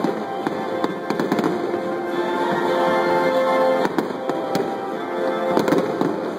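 Aerial fireworks shells bursting in several sharp bangs, with music of long held notes playing over them.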